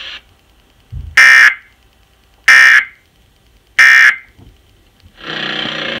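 Emergency Alert System end-of-message data bursts: three short, identical, buzzy digital squawks, each about a third of a second long and about 1.3 s apart, marking the end of the alert. A low thump comes just before the first burst, and a steadier sound with several tones starts near the end.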